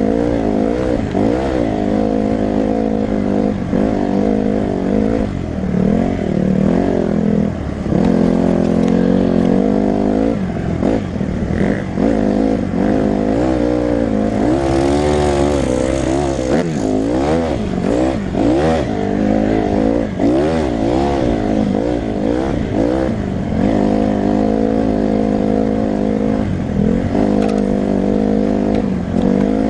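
Honda CRF150R dirt bike's single-cylinder four-stroke engine heard up close from the rider's helmet, revving up and easing off again and again while riding.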